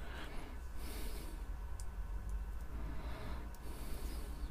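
A person breathing out through the nose twice, about a second in and again near the end, with a few faint handling clicks over a low steady hum.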